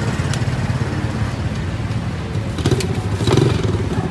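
Motorbike engine running close by on the street, a steady pulsing rumble that swells briefly near the end, with a couple of light clatters.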